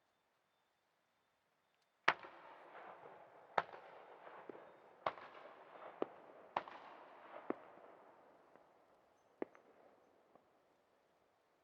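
Aerial firework shells bursting: about seven sharp bangs, a second or two apart, starting about two seconds in, the first the loudest. Each bang is followed by a rolling echo that dies away near the end.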